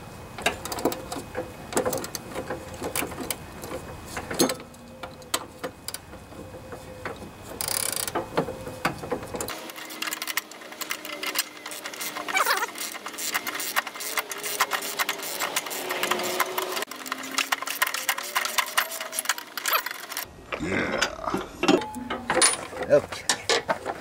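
Socket ratchet clicking in quick runs as a 9/16 nut is backed off the bolt of a mower deck's idler pulley, with small metal clinks of the tool.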